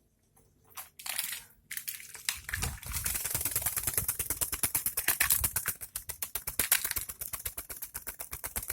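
A parrot bathing, fluttering its wings in water: a rapid, even patter of splashing strokes that starts about two seconds in after a short splash.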